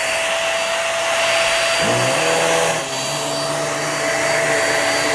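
Hoover React QuickLift upright vacuum cleaner running: a steady motor whine over rushing air, with a lower hum joining about two seconds in.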